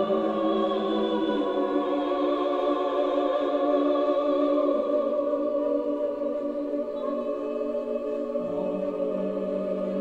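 Choral music: a choir singing long held chords that change about halfway through and again near the end.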